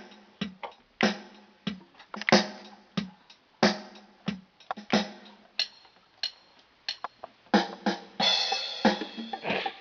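Drum-machine rhythm playing from an electronic keyboard: a strong hit about every two thirds of a second, with lighter hits between and a steady low tone underneath.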